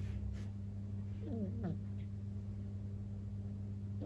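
Sleeping kitten snoring: about a second and a half in, a short whistling snore that falls in pitch on its breath, over a steady low hum.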